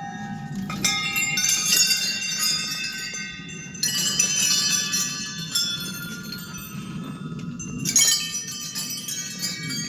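Many small metal bells ringing together, a jangle of overlapping high tones that keep sounding, with fresh clusters of strikes about a second in, about four seconds in and near eight seconds.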